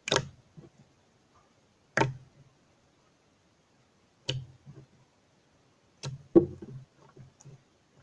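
Jiggly slime being squished and worked in the hands, with a sharp wet pop about every two seconds, each followed by a few fainter sticky smacks.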